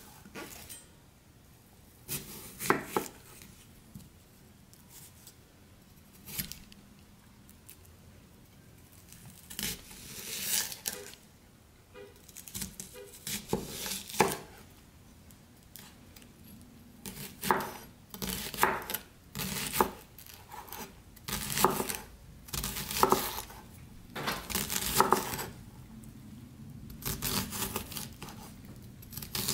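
Kitchen knife cutting a shallot on a wooden cutting board: crisp cuts through the layers and taps of the blade on the board. The cuts come a few at a time at first, then more often in quick runs in the second half as the shallot is diced.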